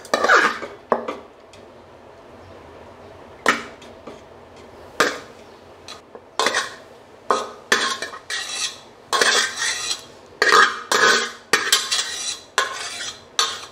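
Steel spoon scraping and knocking against steel pots as par-boiled rice is scooped from one pot and layered over chicken curry in another for biryani. Irregular scrapes and clinks, a few at first, then coming thick and fast in the second half.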